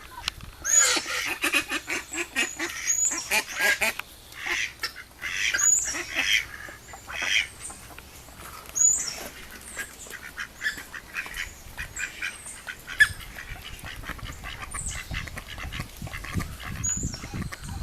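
Mallard hen making short, repeated honking coughs, each with a sharp high squeak at its start. They come thick in the first seven seconds and then space out. The owner hears it as the same cough her Pekin ducks made with aspergillosis, though she hopes it is only something stuck in the duck's throat.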